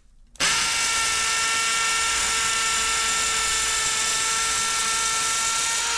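Cordless drill running at a steady speed as it bores a hole into a concrete wall, a constant high whine that starts about half a second in.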